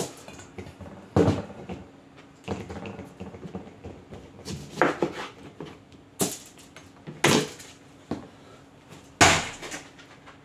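Kitchen knife halving oranges on a cutting board: several sharp knocks a second or two apart as the blade goes through the fruit onto the board, with softer handling sounds between as the halves are set down.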